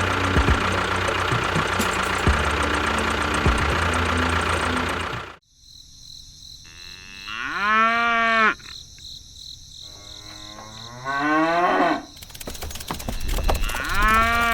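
A small engine running rough with a knocking rhythm cuts off suddenly about five seconds in. Then a cow moos three times in long, drawn-out calls, with a faint steady high whine behind.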